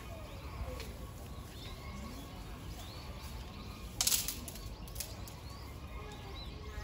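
An Asian elephant feeding on cut grass: a brief, loud rustling swish about four seconds in as its trunk handles a bunch of grass, with a smaller one about a second later, over a low steady outdoor rumble and bird chirps.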